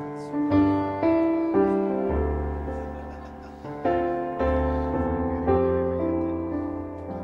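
Slow, gentle piano music: notes and chords struck one after another and left to ring and fade, over deep bass notes.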